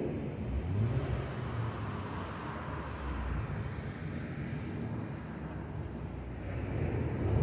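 Jet airliner passing high overhead: a steady, distant broad rumble with a hiss that swells a little a couple of seconds in.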